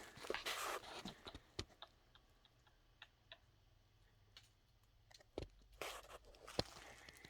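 Footsteps crunching on dry leaves and brush, in two short spells: at the start and again about six seconds in. Scattered faint sharp clicks or taps fall between them.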